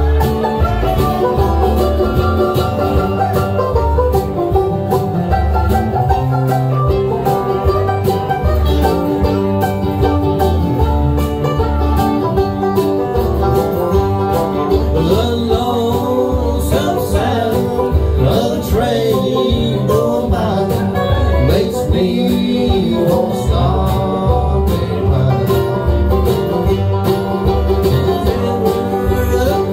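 Live bluegrass band playing: banjo, acoustic guitar and mandolin picking over upright bass and drums, with voices singing in the second half.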